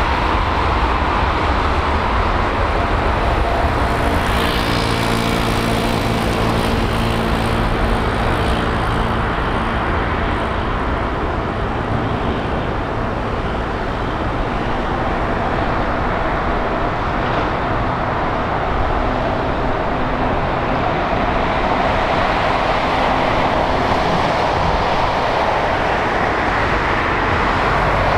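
Boeing 747-8 jet engines at takeoff thrust during the takeoff roll and lift-off: a steady, loud rush of jet noise, with a low hum of tones for several seconds in the first half.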